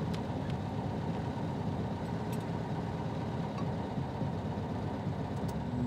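Old car's engine running steadily as it drives, a low even rumble heard from inside the cabin.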